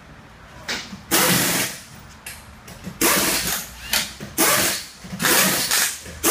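Pneumatic impact wrench run in a series of short bursts, about half a second each with brief pauses, spinning the lug nuts on a car's wheel.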